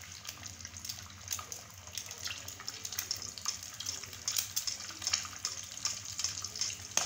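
An egg frying in oil on a flat griddle pan: a steady sizzle with frequent small pops and crackles.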